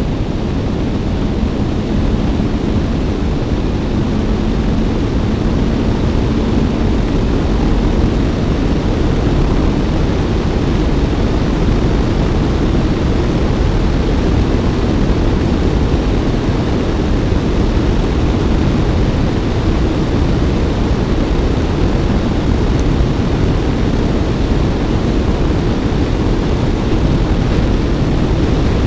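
Steady wind rush over a bike-mounted camera's microphone on a moving Suzuki Bandit, with the inline-four engine running underneath.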